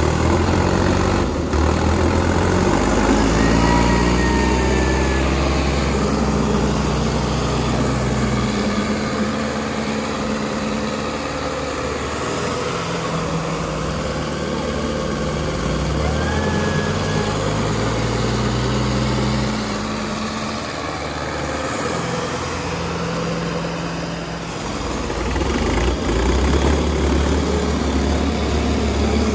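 Diesel tractor engines working under heavy pulling load, their pitch climbing and falling several times as the engines are revved and lugged, as in a tractor tug-of-war.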